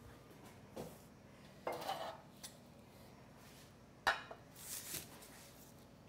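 Faint clatter of a metal baking sheet being handled and set down on a counter, with a sharp knock about four seconds in and soft rustles of its parchment lining.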